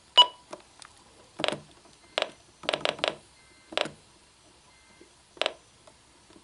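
Buttons on a weather alert radio being pressed: a string of about nine short, irregular clicks, the first with a brief electronic beep.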